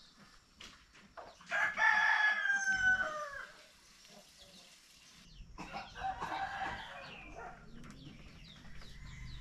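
Rooster crowing: one loud crow about a second and a half in that falls in pitch at its end, then a second, fainter crow around six seconds in.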